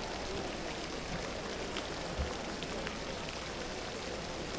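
Steady rain-like hiss of water from the diving pool's surface sprinklers, with a soft low thump a little past halfway.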